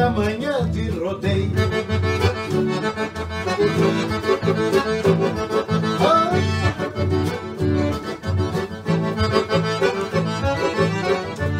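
Piano accordion playing a gaúcho tune over an acoustic guitar accompaniment with a steady rhythm.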